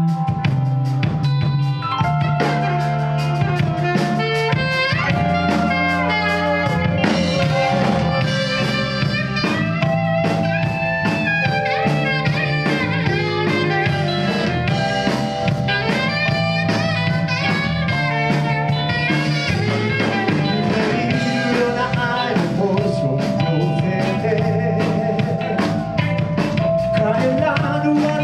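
Live band playing a blues-style number with drum kit and guitar, a steady beat under sustained, bending lead lines.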